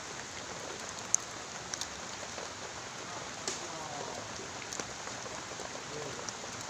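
Steady hiss of rain falling, with a few scattered sharp ticks of drops, the strongest about a second in.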